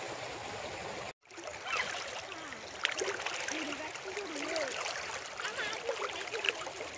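River water flowing and lapping, a steady rushing hiss, with faint voices wavering over it. The sound cuts out completely for a moment about a second in.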